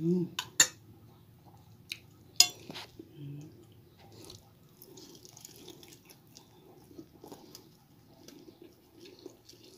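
Eating sounds of chicken and rice being chewed close to the microphone, with soft mouth noises throughout. In the first couple of seconds there are a few sharp clinks of a metal spoon and fork against the plate.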